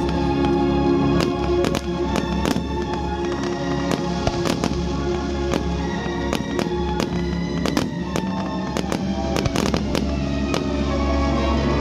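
Fireworks display: many sharp bangs and crackles of shells bursting in quick succession, over music with held notes and a heavy bass.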